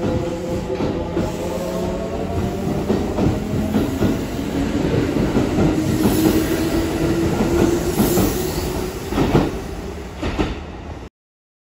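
Kintetsu commuter electric train pulling out of the station: its motor whine rises slowly in pitch over a steady clatter of wheels on the rail joints, with a few louder clacks near the end. The sound cuts off abruptly just before the end.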